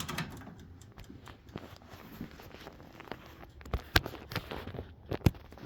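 Light clicks and rustling from handling things in a kitchen, with two sharp knocks about four and five seconds in.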